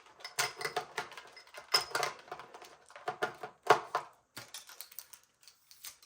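Irregular clicking and knocking of hand tools and small metal parts being handled, with one louder knock a little over halfway through.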